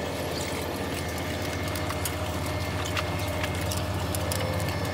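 Steady low hum of the ferry's engines and machinery, with a few light clinks of serving tongs and dishes at the buffet counter.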